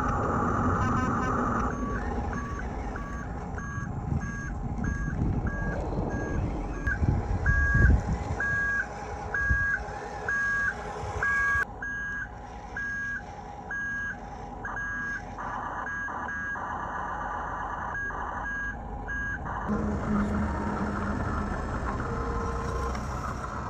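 Huina 1536 RC toy truck running, its small electric motor and gears whirring under a reversing alarm from its sound module: a two-tone beep repeating about twice a second that stops a few seconds before the end.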